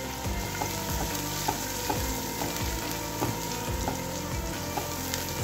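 Onions and spice pastes sizzling in hot oil in a nonstick frying pan while being stirred with a silicone spatula, with small scrapes against the pan every half second or so.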